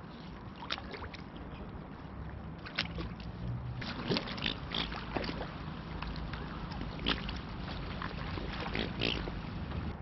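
Mute swans feeding in the shallows: water splashing and sloshing, with irregular small splashes and clicks that come thicker from about four seconds in.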